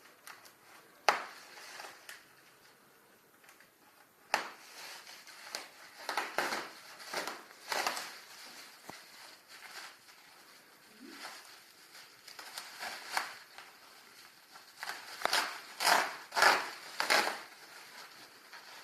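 Parcel packaging being handled: paper and cardboard packing rustling and crinkling in repeated bursts, with a sharp knock about a second in.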